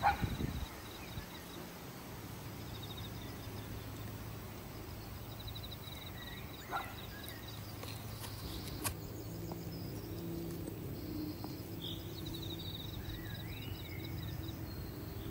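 Outdoor yard ambience: a steady low hum under repeated rapid high-pitched trills and a few short bird chirps, with a brief rustle right at the start and a single sharp click about nine seconds in.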